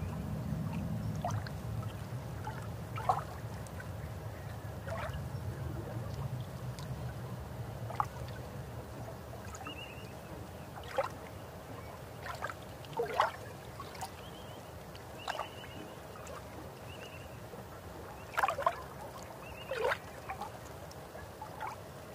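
Water heard through a submerged camera as a dog paddles overhead: a muffled low rumble that fades over the first several seconds, with about a dozen scattered bubbly plinks and pops.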